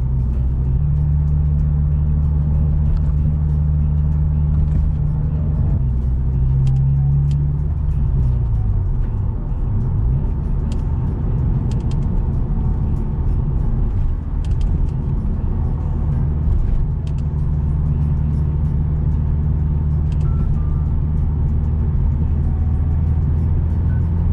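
A car's direct- and port-injected engine and road noise heard from inside the cabin while driving: a steady low drone. Its pitch falls about eight seconds in as the revs drop, then it runs rougher before settling into a steady note again about sixteen seconds in.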